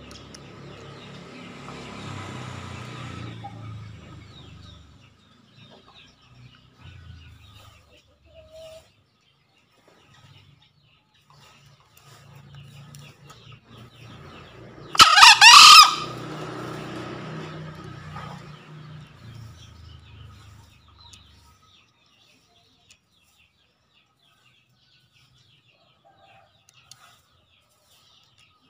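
Male green junglefowl crowing once, a short, high-pitched call of about a second that rises at the start, used as a lure call to challenge a rival male.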